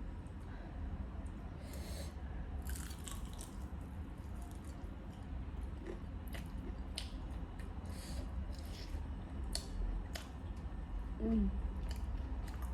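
Close-up chewing and biting: a person eating with wet mouth clicks and smacks at irregular intervals.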